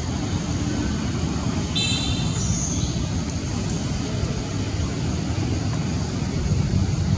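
Steady low rumbling background noise, with a brief high squeak about two seconds in.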